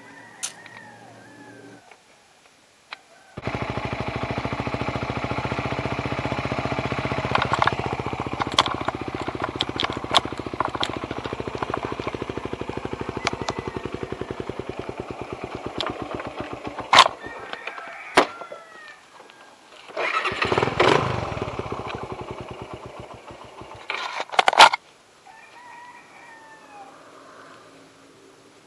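Motorcycle engine that comes in suddenly about three seconds in and runs steadily with an even pulse, broken by several sharp clicks. It drops away around seventeen seconds and comes back briefly twice.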